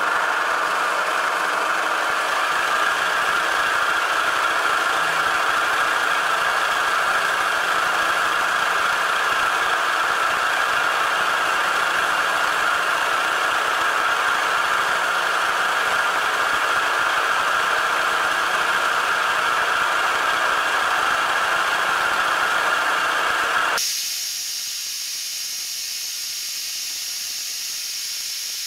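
Milling machine running steadily under power. About 24 seconds in, the sound changes abruptly to a quieter, even hiss as a 5/16-inch twist drill cuts into a 1/8-inch plate of 316 stainless steel.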